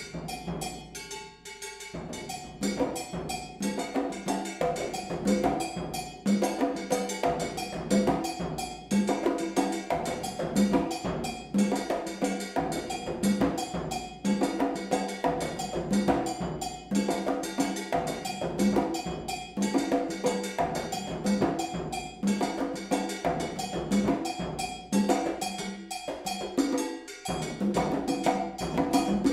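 Kinetic Engine V3 generative software drum ensemble playing layered, interlocking percussion rhythms, with pitched strokes on a few recurring notes. It starts sparse and thickens about two seconds in, with a brief dip near the end.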